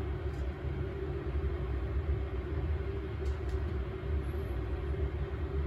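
Steady low rumble with a constant hum, with a few faint light clinks a little over three seconds in.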